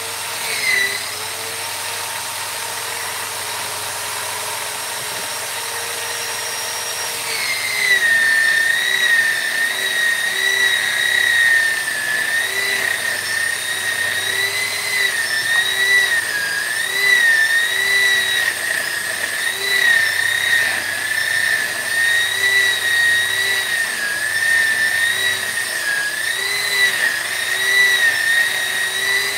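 High-speed rotary carving tool running with a high whine. About seven seconds in it gets louder, and from then on its pitch keeps dipping and recovering as the bit is pressed into the wood.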